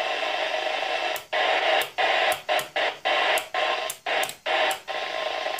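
Static hiss from a President Grant II CB radio's speaker as its channel knob is turned, the noise cutting out briefly about ten times, once at each channel step. The band noise sits around S5, which the owner suspects is partly interference from a neighbour's Sky Q installation.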